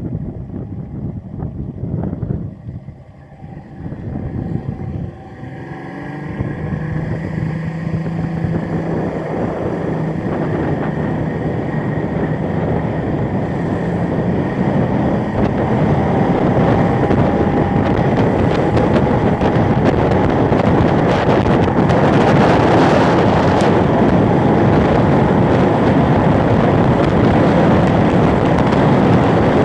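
Yamaha two-stroke outboard motor driving a small boat under way. It grows louder over the first several seconds and then runs steadily, with heavy wind noise on the microphone.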